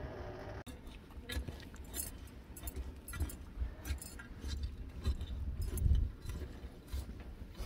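Light metal clinks and scrapes from a metal rod knocking against a lidded metal cooking pot set in the ashes at the bottom of a tandoor, over an uneven low rumble.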